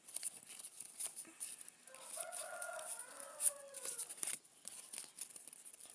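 A rooster crows once, starting about two seconds in and lasting about two seconds, with a slight fall at the end. Scattered light clicks and rustles of handling sound throughout.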